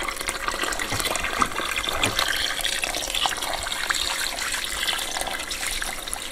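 Water poured steadily from a watering can into a bucket of lime powder, topping up the water over the lime to slake it into lime putty.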